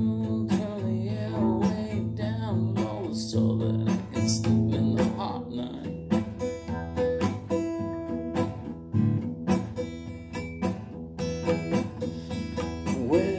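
Acoustic guitar strummed in a slow, steady rhythm, chords ringing between strokes. A singing voice trails off at the start and comes back in at the very end.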